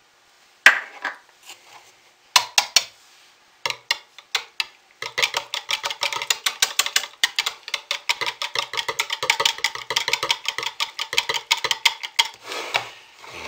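A metal spoon stirring soap batter in a plastic measuring pitcher, scraping and clicking quickly against the sides from about five seconds in until near the end. A few separate knocks come before the stirring starts.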